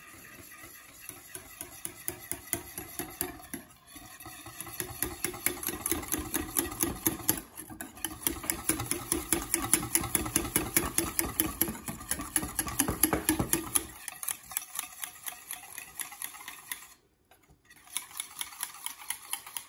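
Wire balloon whisk beating fast against the sides and bottom of a small stainless steel saucepan, a quick run of metallic clicks several times a second, as grated parmesan is whisked into hot cream to make a parmesan cream sauce. The whisking breaks off briefly a few times, once for about a second near the end.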